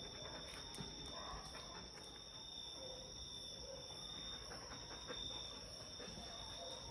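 Faint, steady high-pitched insect chorus, with a few soft scuffs and rustles.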